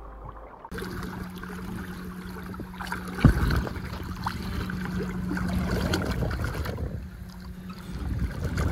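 Outdoor river ambience of water moving around a wading angler, with a steady low hum and a single sharp knock about three seconds in.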